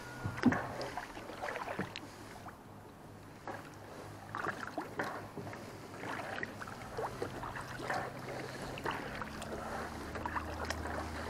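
Kayak paddle strokes: the blades dipping into lake water with small, irregular splashes.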